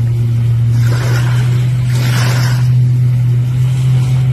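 Watercraft engine running steadily with a loud, even low drone, with water washing and splashing in swells over it.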